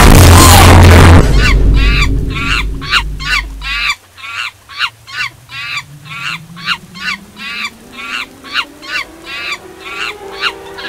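A fast run of short, evenly spaced honks, about three a second, each with a bending pitch; loud electronic music fades out under them over the first few seconds, and faint held musical tones come in near the end.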